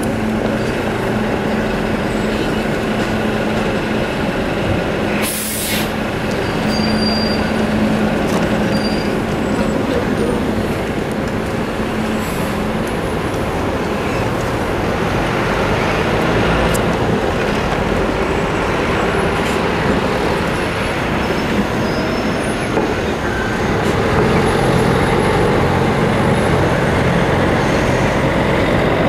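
City buses and a tram running through a busy junction, with a steady low hum in the first dozen seconds. A bus's air brakes give one short hiss about five seconds in. The traffic gets a little louder near the end.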